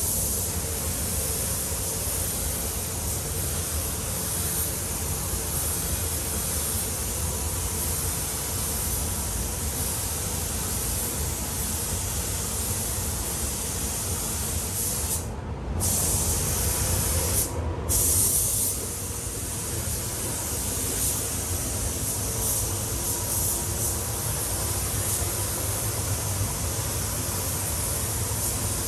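Compressed-air paint spray gun hissing steadily as a coat goes onto a car bumper, with the trigger released briefly twice about halfway through. A low steady hum, typical of spray booth extraction fans, runs underneath.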